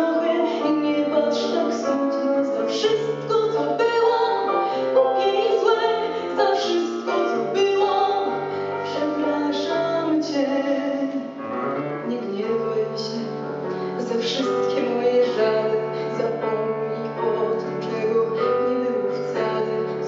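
A song with piano accompaniment and a woman's singing voice.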